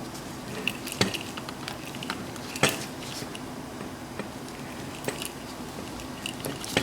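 Small clicks and light rattling from wires and a plastic ceiling fan speed switch being handled, with a few sharper ticks spaced out, the loudest about two and a half seconds in.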